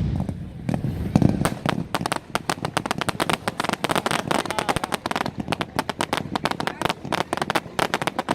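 Fireworks crackling: a fast, continuous run of sharp cracks, many per second, like a long string of firecrackers. A deeper rumble from a bigger blast fades out in the first second or so.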